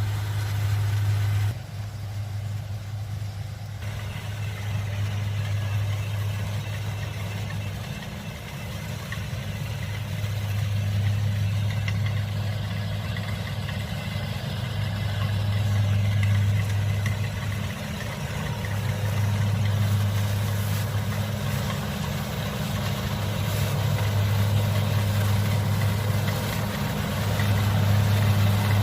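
Kubota DC-70 combine harvester's diesel engine running steadily while harvesting rice, a low hum that swells and eases every few seconds.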